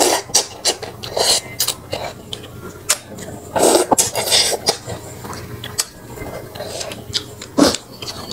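Close-up eating sounds of a person slurping and chewing pieces of snakehead fish from fish porridge: irregular wet sucking and slurping bursts, the longest about three and a half seconds in, with a few sharp clicks.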